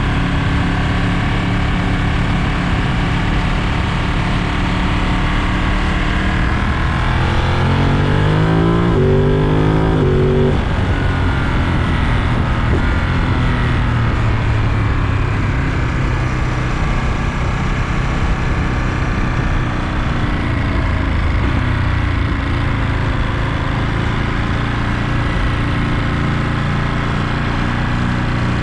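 Ducati Monster 937's Testastretta V-twin engine under way on the road. About seven seconds in it revs up through two quick upshifts, the pitch climbing and then dropping sharply at each shift, then settles to a steadier cruise.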